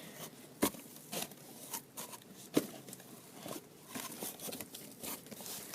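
Knob of a homemade cardboard vending machine being turned, rotating a plastic water-bottle drum inside: light crinkling and scraping with scattered clicks and two sharper knocks.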